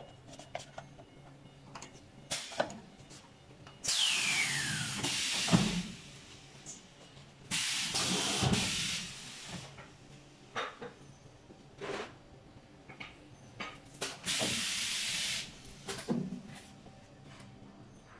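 Pneumatic cylinders of a hot-plate plastic welding machine venting compressed air in three loud hisses, the first starting with a falling whistle. Sharp clicks and knocks of the moving platens and tooling sound between the hisses.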